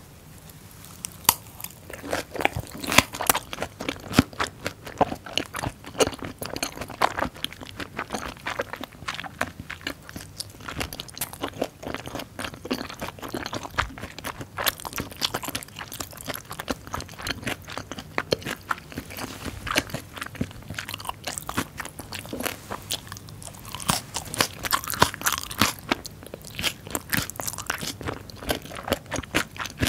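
Close-miked chewing of fermented skate with pork and aged kimchi, a dense, irregular run of crunches that starts about a second in.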